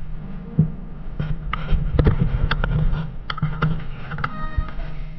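Wind buffeting a hand-held camera's microphone outdoors, a steady low rumble, with scattered clicks and knocks throughout. A short pitched tone sounds briefly about four seconds in.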